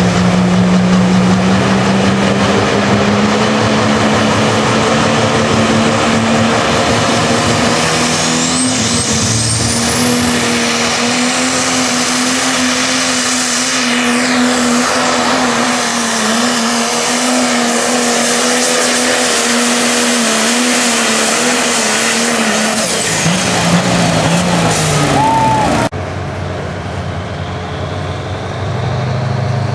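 Diesel pickup truck engine running flat out under heavy load while pulling a weight-transfer sled, with a high whistle climbing about a third of the way in. Near the end the engine note drops away, and after a sudden cut a quieter engine runs.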